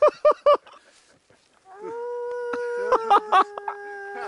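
A person howling like a wolf: a few short yips, then from about two seconds in one long held howl that drops a little in pitch partway through.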